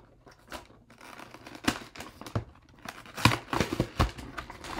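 Toy blind-pack packaging being torn open and crinkled by hand: an irregular run of crackles and sharp rips, loudest about three seconds in.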